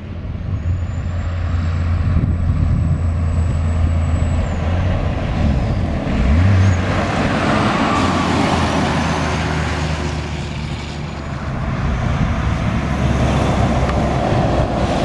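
Heavy diesel trucks driving past: road trains and prime movers, their engines running with a deep steady drone, mixed with tyre and wind noise. A thin high whistle rises and holds over the first four seconds, and the engine note jumps briefly about six seconds in.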